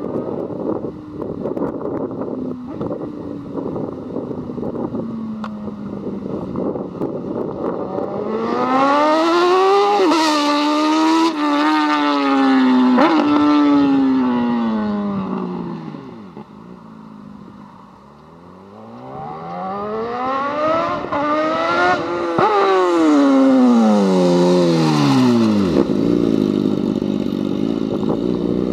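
BMW S1000RR inline-four with an Akrapovič full exhaust system making two fast pass-bys: each time the engine note climbs through several quick upshifts as the bike approaches, then falls away as it passes and recedes. It fades low between the two passes.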